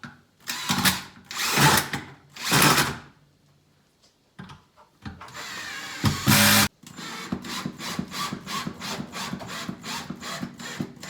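A power drill driving screws. It runs in three short bursts, then in one longer run, and then gives a rapid clicking of about four clicks a second.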